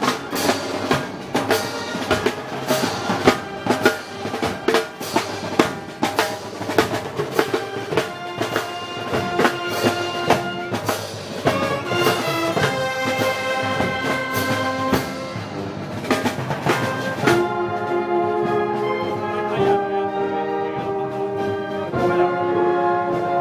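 Festival brass band music with drums. Drum strikes run through the first half alongside the brass, then the brass plays long held chords with little percussion.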